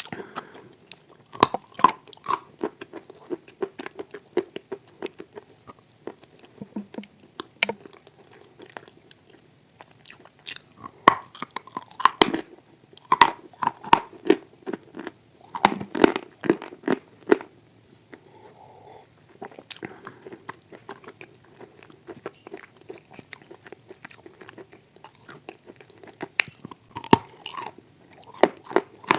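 Close-up chewing and crunching of wet chalk in clay paste. Irregular sharp crunches come in bunches, the densest about halfway through, over softer wet chewing.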